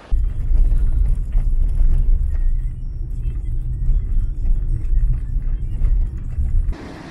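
Loud, deep rumble that cuts in suddenly and stops abruptly shortly before the end, with almost nothing in the higher pitches while it lasts.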